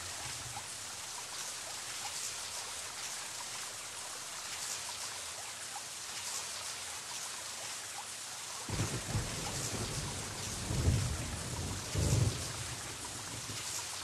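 Steady rain, with three low rumbles of thunder in the last few seconds.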